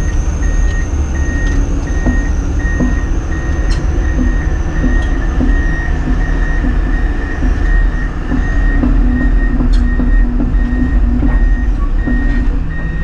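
Komatsu PC210 excavator's diesel engine running steadily as the machine tracks along, with its travel alarm beeping about twice a second.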